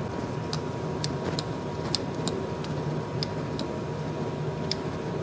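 Grease gun being pumped into a zerk fitting on the tractor's three-point hitch side link: a string of light, sharp clicks, roughly two a second, over a steady background hum.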